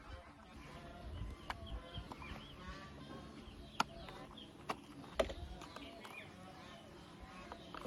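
Chickens clucking and small birds calling in the background. About four sharp clicks of hard plastic toy parts are handled and fitted together.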